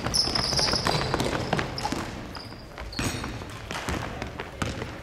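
A basketball being dribbled on a wooden gym floor, with players' footsteps and short high sneaker squeaks.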